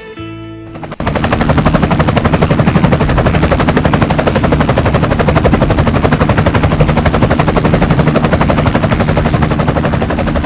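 Spinning rotor making a loud, steady, rapid chopping rattle, starting about a second in as the music cuts off.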